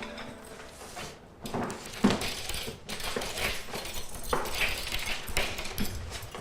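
Dishes and cutlery clinking: irregular short knocks and clinks of spoons and plates being handled, starting a little over a second in.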